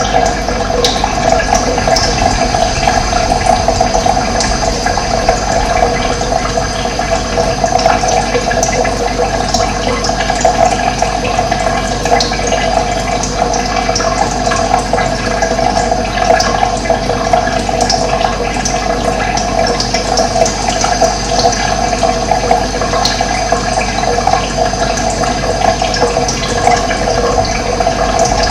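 Running water flowing steadily, with short bird chirps here and there.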